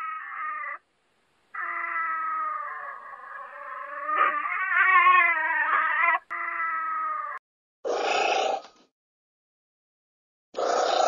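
Marten calling: a short whining cry, then a long wavering cry of about four and a half seconds, then a cry of about a second. Two short noisy bursts follow near the end.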